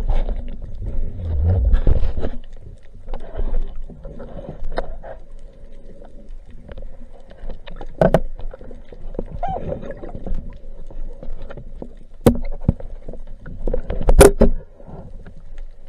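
Underwater sound on a spearfishing dive: water rushing and rumbling against the camera for the first two seconds, then a low steady hum broken by a few sharp knocks, the loudest about fourteen seconds in.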